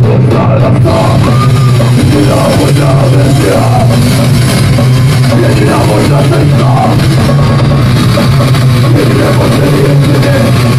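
Live rock band playing loud: electric guitars, bass and drum kit, a dense continuous wall of sound with a heavy low end.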